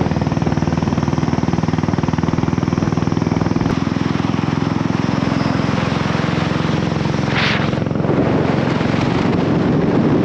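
Motorcycle engine running steadily while being ridden, its firing pulses fast and even. There is a brief hiss about seven seconds in, and the rushing noise grows louder over the last couple of seconds.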